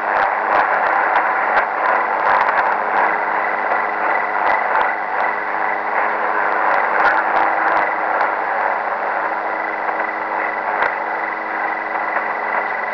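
Shortwave radio receiving Chinese music in upper-sideband (USB) mode, so it comes out as a garbled, distorted noise with a few steady tones running through it and scattered crackles of static.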